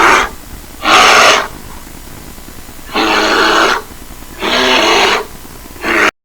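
A bear roaring in a series of loud, rough roars, about one every second and a half. The last roar is cut off abruptly.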